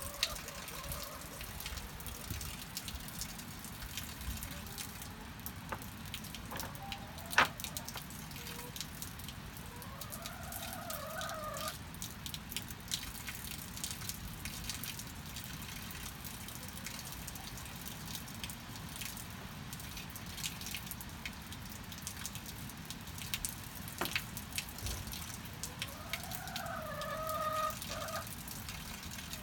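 Steady rain with scattered drips, and chickens in a henhouse: two drawn-out chicken calls that rise and then hold, one about ten seconds in and one near the end. A single sharp knock about seven seconds in is the loudest sound.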